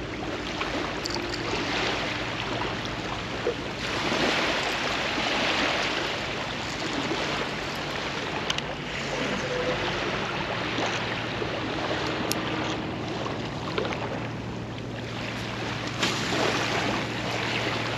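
Small waves washing and lapping onto a sandy beach, a steady surf hiss that swells louder about four seconds in and again near the end.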